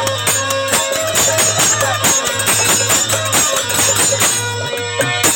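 Instrumental interlude of Bhojpuri folk devotional music: rhythmic hand percussion with jingles over sustained melodic instruments and a steady bass.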